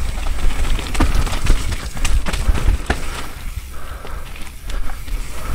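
Mountain bike riding down a wet dirt trail: steady wind rumble on the microphone, with the bike rattling and knocking sharply over bumps and roots every second or so.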